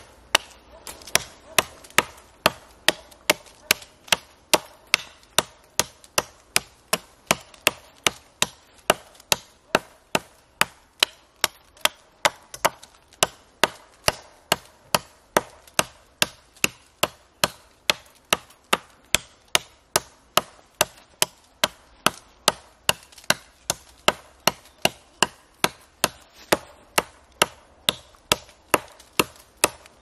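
Mora Lightweight Axe chopping into a young tree trunk: steady blows of the steel head biting into wood, about two a second.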